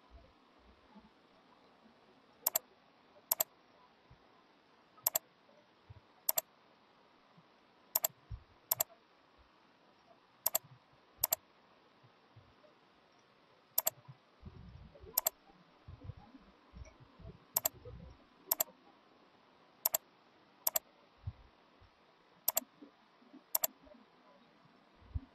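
Computer mouse button clicking in pairs, each press followed by a release about a second later, eight pairs in all, as it clicks and drags. A few faint low thumps come in the middle.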